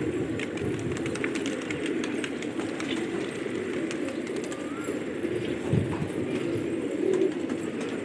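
A flock of domestic pigeons cooing steadily in a low, overlapping murmur, with occasional short wing flaps.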